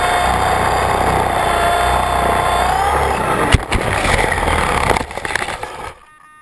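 RC helicopter's motor and rotor whining steadily in low flight, then a sharp impact about three and a half seconds in as it crashes into the grass, the rotor thrashing through the grass for a second or two before the sound cuts out about six seconds in.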